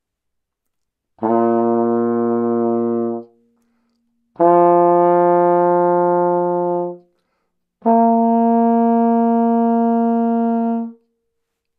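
Trombone playing its three open notes with the slide closed, each held long and steady with short gaps between: low B flat, then F, then the B flat an octave above.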